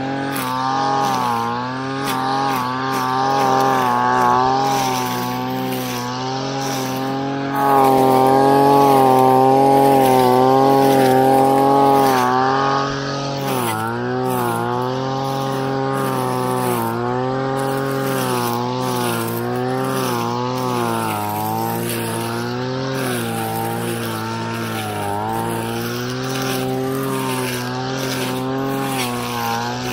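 Brush cutter running as it cuts weeds, its pitch wavering up and down as the head meets and clears the growth. It is louder and held steady for a few seconds from about eight seconds in.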